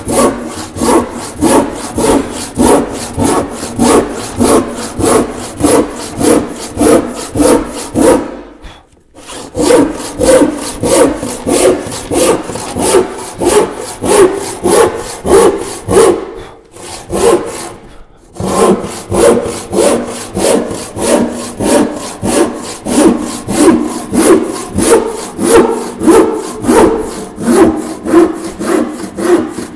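Hand crosscut saw cutting across a soft white pine board, steady back-and-forth strokes at about two a second, with two short pauses.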